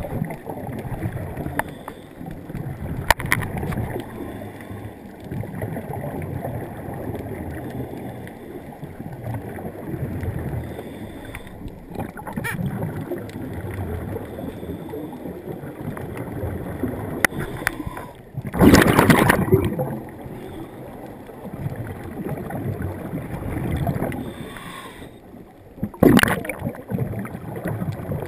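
Muffled underwater noise from a camera housing below the surface, with the rushing gurgle of a scuba diver's exhaled bubbles; two loud bubble rushes stand out, one about two-thirds of the way through and a shorter one near the end.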